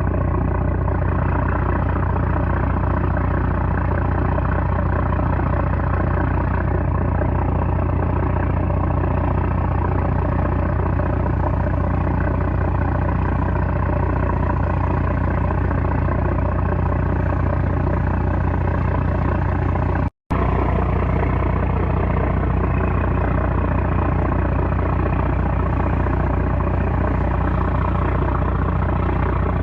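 A trawler's 330-horsepower engine running steadily with a heavy, constant drone. The sound drops out completely for a split second about twenty seconds in, then resumes unchanged.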